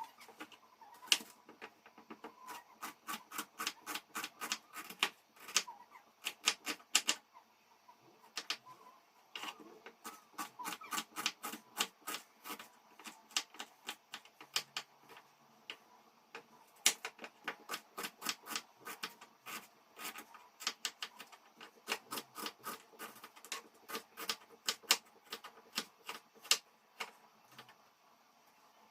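Kitchen knife chopping on a cutting board: runs of quick, sharp strikes, several a second, broken by short pauses and stopping near the end.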